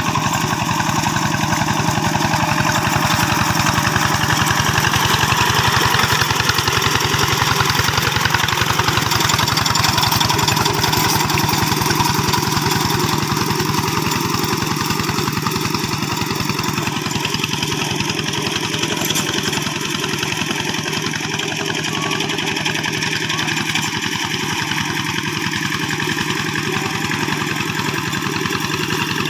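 Single-cylinder diesel engine of a two-wheel hand tractor running steadily.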